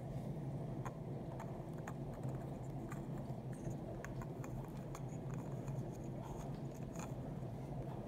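Small clicks and rubbing of hands handling a 3D-printed plastic pull-string spinner and threading its cord, over a steady low hum.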